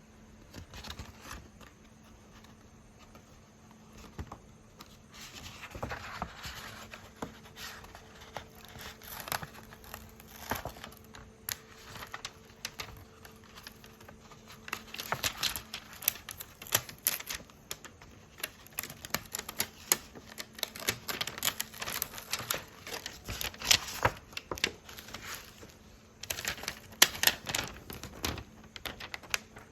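Hands handling sticker cards and their packaging: quick clicks and taps with some crinkling, sparse at first and growing denser and louder about halfway through.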